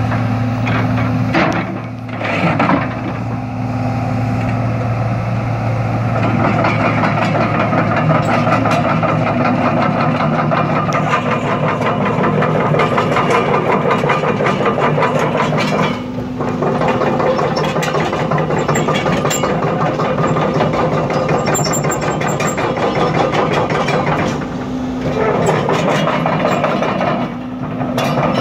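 John Deere 200 LC excavator's diesel engine running steadily, with mechanical noise over a low, even engine hum.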